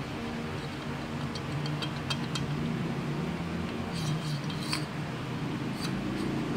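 Light metallic clicks and clinks of a standard Suzuki TS125 piston rocking loose inside a two-stroke 125cc scooter cylinder that is bored out for a 56 mm piston. The piston rattles because the bore is far too big for it. The ticks come in two clusters, a little after a second in and again around four seconds, over a steady low hum.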